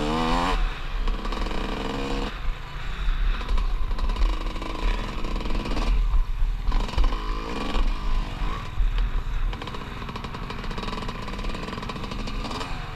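Dirt bike engine heard close up from a camera mounted on the bike, revving hard and falling away as the rider opens and closes the throttle, with a buzzy mechanical rattle. The pitch rises and falls repeatedly and drops off sharply about two seconds in and again around six seconds.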